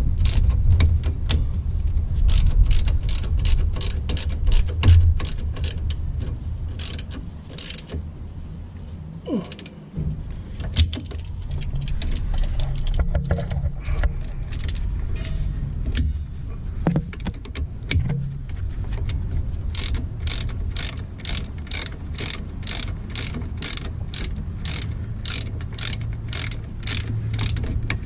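Hand ratchet clicking as bolts on the brake assembly are wound in: quick, even trains of ticks at the start and again through the last third, over a steady low rumble.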